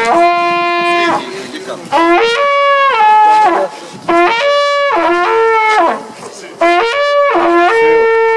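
Hunting horn blown in four long, loud calls about two seconds apart, each stepping up from a low note to a higher held note and back down.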